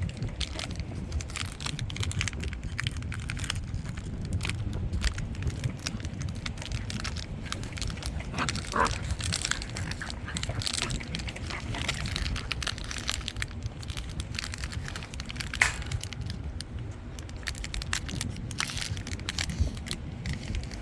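A dog chewing a homemade sock toy: an irregular crackling and crinkling of many small clicks and snaps that goes on throughout.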